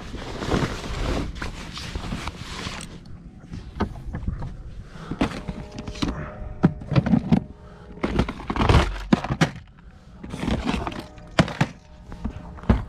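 Irregular knocks and clatters of clear plastic tackle boxes being handled and set down inside a bass boat's storage compartment.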